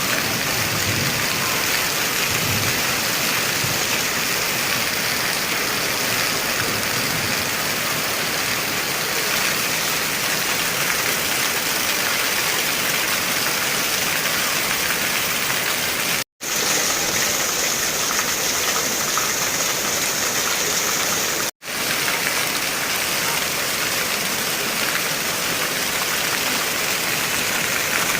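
Heavy rain falling in a steady, even hiss. It drops out completely for an instant twice, about 16 and 22 seconds in.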